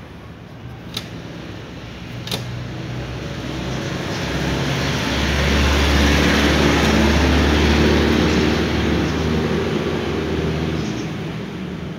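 A motor vehicle passing by: its engine and road noise swell over several seconds, peak, then fade away. Two short sharp clicks come about one and two seconds in.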